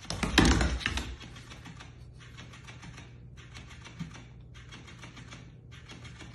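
Motorised flopping fish toy flapping its tail against a wooden floor, heard as a rapid mechanical ticking in bursts of about a second with brief pauses between them. A louder clatter comes in the first second as the toy is dropped from the dog's mouth.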